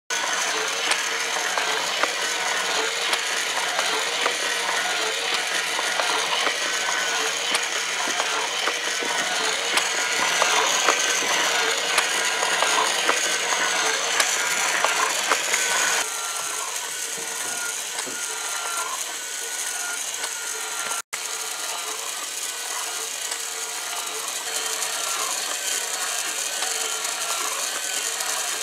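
Transparent plastic Haynes model four-cylinder engine running, its moving pistons, valve gear and belt-driven fan making a steady, dense plastic clatter of small clicks. It turns a little quieter about halfway through.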